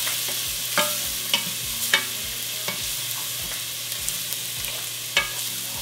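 Hot oil sizzling steadily in a stainless steel pan as food fries for a tadka, starting suddenly at the outset. A wooden spoon stirs, knocking against the pan about five times.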